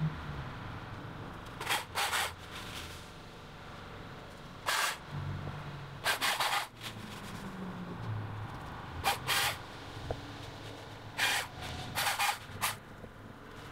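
About ten short, sharp bursts of cutting and rustling noise, some in quick pairs, as small leafy branches are cut with a Husqvarna electric chainsaw and pulled away. A low steady hum runs underneath.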